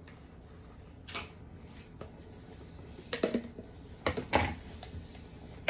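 Plastic clicks and knocks from a personal blender's cup being twisted off its motor base and its blade assembly unscrewed and set down on a wooden cutting board. One faint click about a second in, then a louder cluster of clatters between about three and four and a half seconds in.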